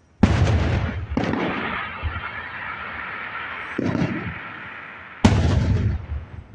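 Four sudden loud bangs, the third weaker than the others, each followed by a long rumbling tail that slowly dies away.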